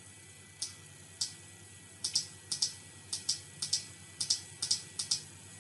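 Clicking at a computer mouse and keyboard: a run of short, sharp, uneven clicks, a few at first and then faster after about two seconds, several coming in quick pairs.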